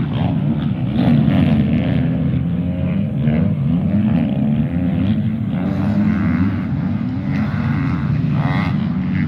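Several motocross dirt bikes racing on a dirt track, their engines revving up and down over one another as the riders accelerate and back off through the turns and jumps.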